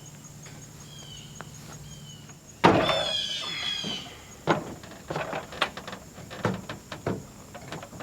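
A sudden squealing scrape about two and a half seconds in, followed by a string of knocks and clunks, as heavy shop equipment is moved and set up.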